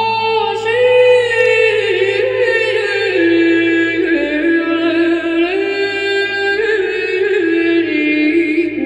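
Unaccompanied Byzantine-style festive chant, sung in long held notes that step up and down in a slow melody.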